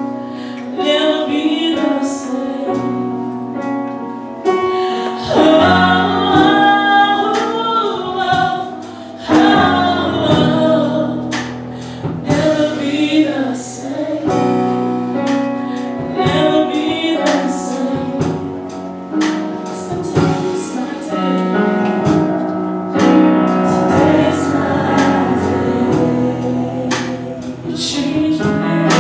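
Gospel choir singing a worship song with instrumental backing: held keyboard or bass notes under the voices, with regular sharp strikes.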